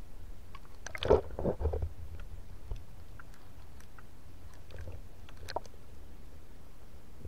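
Underwater sound picked up by a submerged camera: a steady low rumble with scattered sharp clicks, and a short cluster of louder crackling knocks about a second in.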